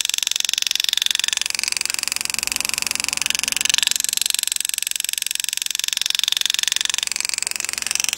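A power-assist engraving graver hammering rapidly as its steel point cuts lines into a coin, making a steady fast chatter.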